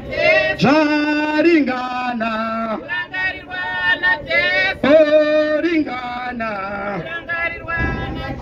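A group of men and women singing together unaccompanied, in long held notes.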